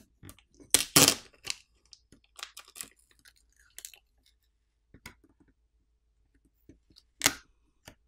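Adhesive-backed flex cable and heat transfer tape being peeled by hand off an iQOO Z7 Pro smartphone's midframe. It makes irregular crackling and tearing sounds, loudest about a second in and again near the end.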